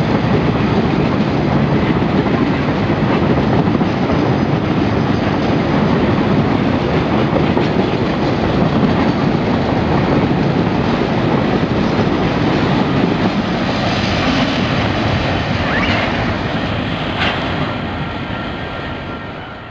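Freight train of covered wagons rolling past close by, wheels clattering and rumbling over the rail joints. It fades as the last wagon draws away, with a couple of sharp clanks near the end.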